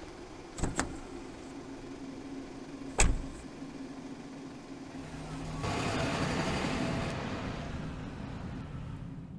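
Two short clicks, then a car door slamming shut about three seconds in, on a Maruti Suzuki Ritz hatchback. The engine then swells as the car pulls away and drives off, fading toward the end.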